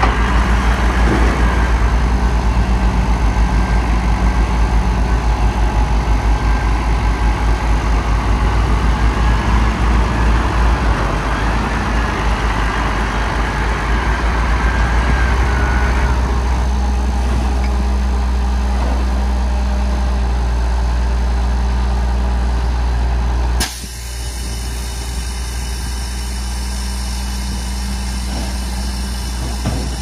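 Diesel engine of heavy earthmoving machinery running steadily with a deep low rumble. About three-quarters of the way through, the sound changes abruptly to a steadier, quieter engine note.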